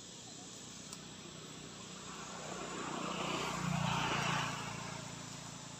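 A motor vehicle passing by: a low engine hum with tyre-like rushing noise that swells for a couple of seconds, peaks about two-thirds of the way through, then fades. Crickets or other insects buzz steadily underneath.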